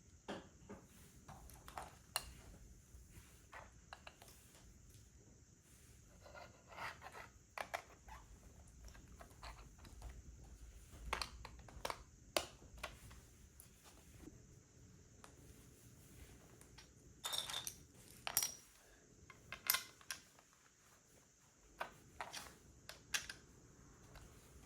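Small plastic LEGO pieces clicking and clattering as they are handled and pressed together, in scattered sharp clicks and short rattles.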